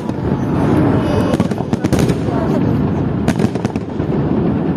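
Fireworks salute going off: a continuous low rumble of distant bursts with several sharp bangs scattered through it.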